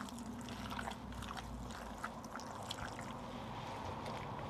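Raw chicken pieces being mixed in a wet egg-and-spice marinade: soft wet squelching with scattered small ticks, over a low steady hum.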